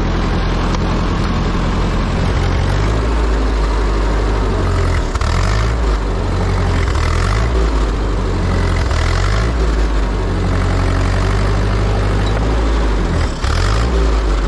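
Ford 8N tractor's four-cylinder engine running while it pulls a V-shaped potato plow through the soil to cut a planting groove. The engine's pitch dips and recovers several times as the load changes.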